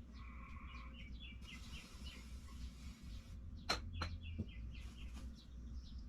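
Small birds chirping, a run of short quiet calls, over a faint steady low hum, with a couple of sharp clicks a little past halfway.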